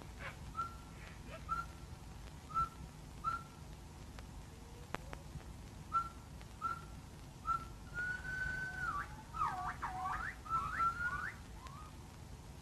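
Whistled calls: a run of short notes on one pitch, each sliding up into a brief held tone, roughly one a second, then a longer held note and a quick flurry of swooping glides down and up near the end.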